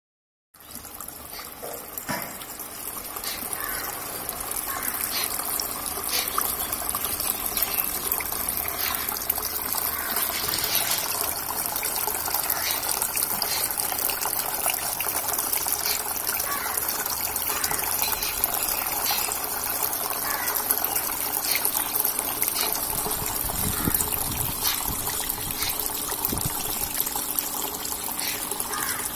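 Water pouring from the plastic-bottle spouts of a small homemade stone fountain and splashing steadily into the pool below.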